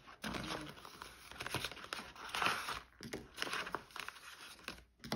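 Paper banknotes and cash envelopes rustling and crinkling as they are handled and sorted, a continuous run of rustles and small crackles.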